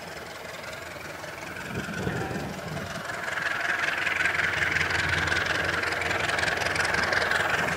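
Diesel locomotive hauling passenger coaches approaching, its engine growing steadily louder, with a high whine coming up over it from about three seconds in.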